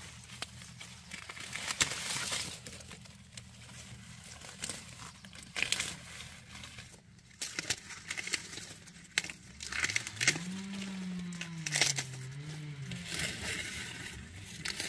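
Sugarcane stalks and dry leaves rustling and crackling as the cane is handled and cut, with sharp snaps now and then. About ten seconds in, a cow moos once, a long wavering call of about three seconds.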